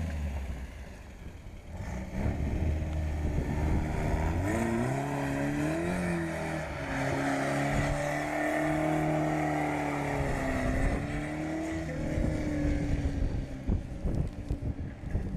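Car engine running under way over a steady rush of road noise; its pitch rises about five seconds in, then holds steady and eases slightly near the ten-second mark.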